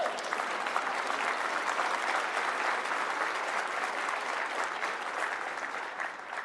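Large audience applauding, a steady dense clatter of many hands clapping that starts to thin out near the end.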